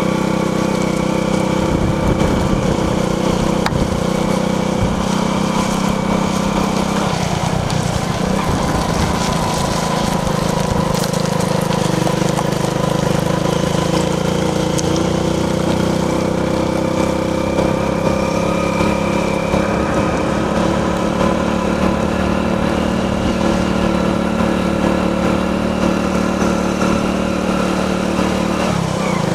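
An engine or motor running steadily with a constant hum.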